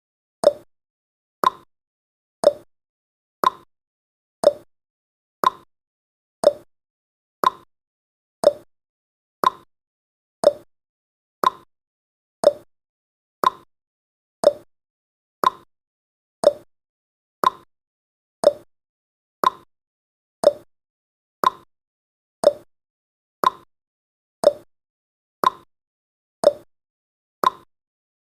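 Clock-tick sound effect of a countdown timer: short, sharp ticks, one every second, evenly spaced.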